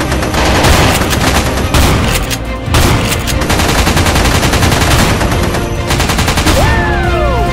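Rapid automatic gunfire sound effects with music underneath. Near the end comes a falling whistle-like tone.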